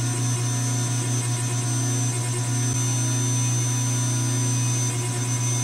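Hydraulic tube bender's pump running with a steady, even motor hum while it bends a steel roll-cage tube.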